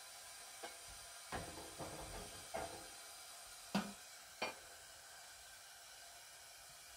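About six light knocks and clatters in the first half, the loudest a little past the middle, over a faint steady hiss.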